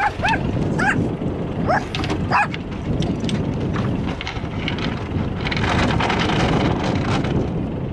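Small dog yelping and whining in excitement, about five short high calls in the first two and a half seconds, over a steady rushing noise that swells from about five and a half seconds in.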